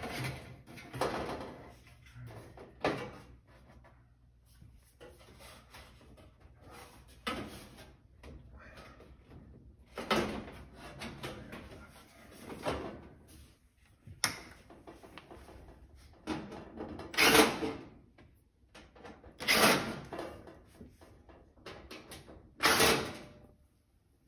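Irregular knocks, clanks and rattles from the sheet-metal back panel of an electric range being handled as its screws are taken out, with the loudest clatters in the second half.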